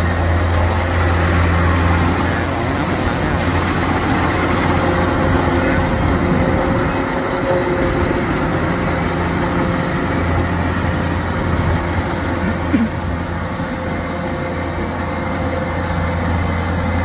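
Kubota DC105X rice combine harvester running steadily under load, its engine droning with the noise of the threshing and straw discharge as it harvests. One brief thump about thirteen seconds in.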